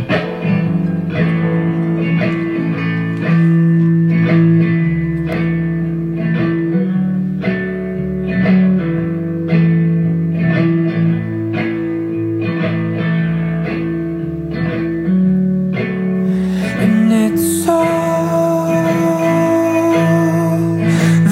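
Background music: a guitar-led instrumental passage of plucked notes over a bass line, with a steady beat; a long held higher note comes in a little after three quarters of the way through.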